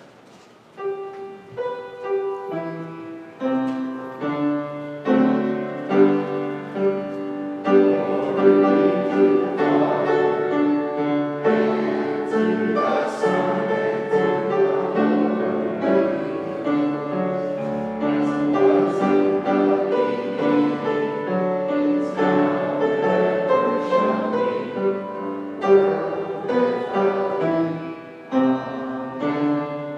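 Piano playing music in full chords, starting about a second in.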